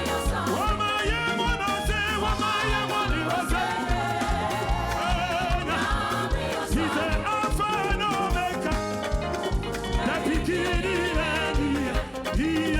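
Upbeat Ghanaian gospel praise music, with a steady quick drum beat under singing voices.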